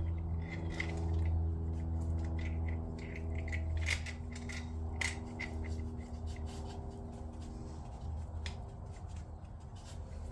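Irregular light clicks, taps and scraping of small metal tools and parts being handled, over a steady low hum that fades toward the end.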